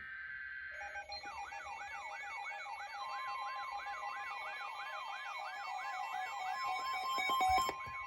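Weather radio alert: electronic alarm tones sounding for a flood warning, a steady tone overlaid from about a second in by a falling chirp repeating about three times a second.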